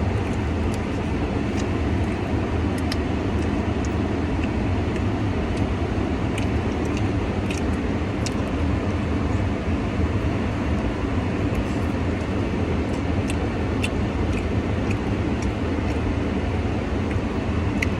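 Steady low rumbling hum with faint, scattered short clicks and smacks from someone eating a barbecue chicken wing.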